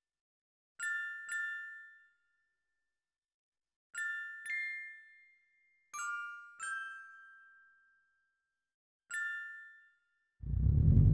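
Seven bright glockenspiel-like chime notes, mostly in pairs, each ringing and fading away: a magic-sparkle sound effect. Near the end the Subaru Impreza WRX STI's turbocharged flat-four engine comes in suddenly and loudly.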